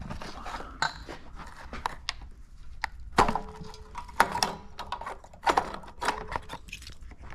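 Irregular clicks, taps and light metallic knocks of an electric water heater's thermostat and its wires being handled and worked free by hand.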